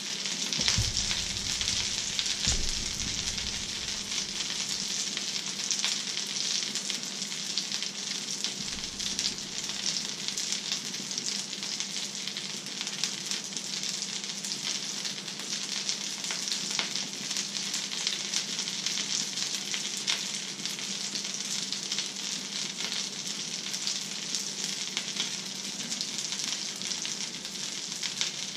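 Fish fingers and egg frying in a pan, sizzling steadily.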